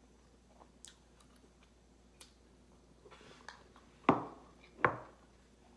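Close-miked eating sounds of a person eating pasta: a few faint clicks, then two louder sharp smacks under a second apart about four seconds in.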